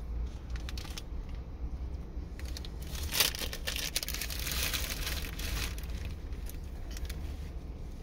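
Crinkling and crumpling of a muffin bar's plastic wrapper, handled for a few seconds around the middle, over a steady low hum.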